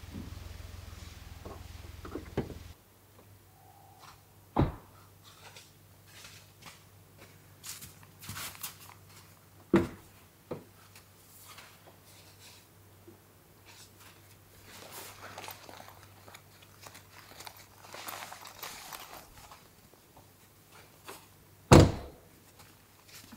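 Three dull thunks spread through otherwise quiet light rustling; the third, near the end, is the loudest. A low steady hum cuts off about three seconds in.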